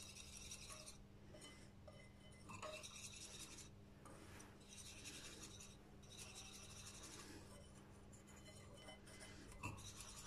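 Faint scraping of a wire whisk against a plate as it beats eggs and flour together, in runs of a second or so with short pauses.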